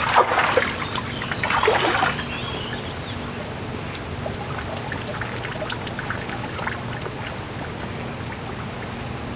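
Water splashing and sloshing as a person climbs out of a shallow river channel, during the first two seconds, then a steady trickle of flowing river water with a few faint drips.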